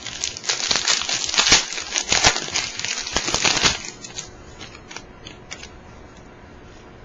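Foil trading-card pack wrapper being torn open and crinkled, a dense crackling that stops about four seconds in, followed by a few light clicks.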